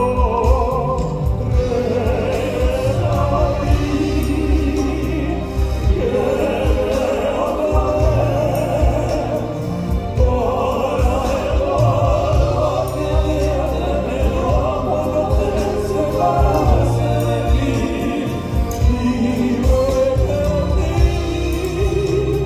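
Male vocal quartet singing in harmony in an operatic pop style, the voices amplified through microphones with vibrato, over a live band backing with strong bass.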